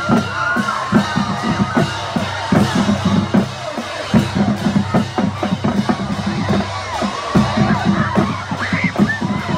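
Marching band drumline playing a cadence: snare and bass drums in a fast, steady beat.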